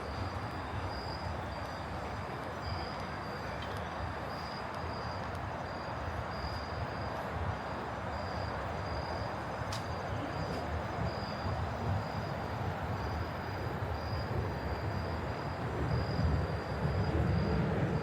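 Steady low rumble of city noise that grows louder near the end, with an insect chirping faintly in a regular pulse about twice a second.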